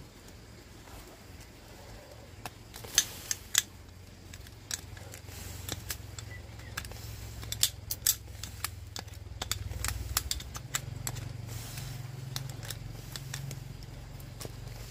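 Handling noise: scattered sharp metallic clicks and clinks of tools and small parts, with the loudest about three seconds in and again about eight seconds in, over a low steady hum.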